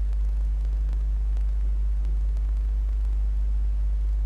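Steady low electrical hum with hiss and a few faint clicks: the noise floor of an old home-movie soundtrack copied to VHS tape.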